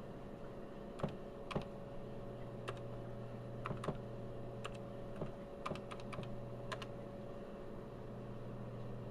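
Key presses on a Tandy TRS-80 Model 12 keyboard: about fifteen irregular clicks as a date is typed in, stopping a couple of seconds before the end. A steady electrical hum runs underneath.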